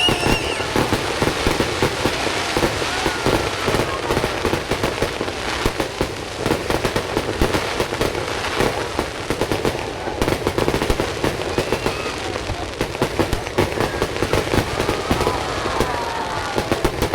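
Fireworks going off in a dense, continuous barrage of rapid, irregular bangs and crackles.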